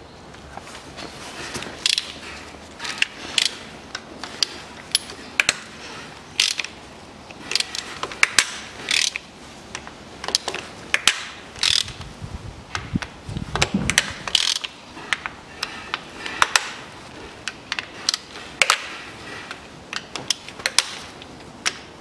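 Socket ratchet clicking in short irregular runs as the bolts around the Nissan Murano's CVT oil pan are loosened one after another.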